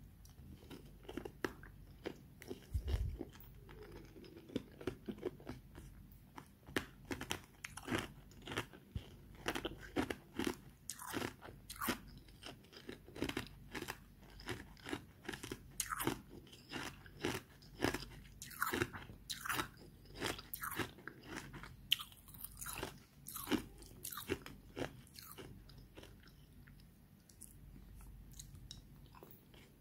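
A person biting and chewing a mouthful of hard ice from a frosty ice ball, giving a long run of sharp, irregular crunches. The crunches come thickest midway and thin out near the end.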